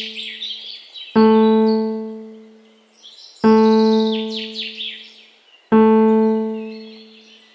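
Relaxation music: a single low keyboard note, like an electric piano, struck three times about two and a quarter seconds apart, each ringing and slowly fading. Birds chirp above it.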